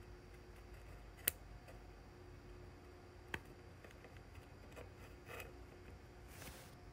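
Faint handling of small parts with two sharp clicks, about a second in and again two seconds later, then soft rustling near the end, as resistor leads are bent and the resistors are fitted into a circuit board.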